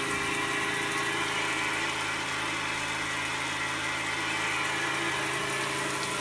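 24-volt electric water pump running with a steady hum while water pours from a square rainfall shower head onto the ground.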